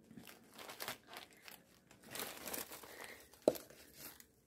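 Handling noise: irregular rustling and crinkling, with one sharp knock about three and a half seconds in.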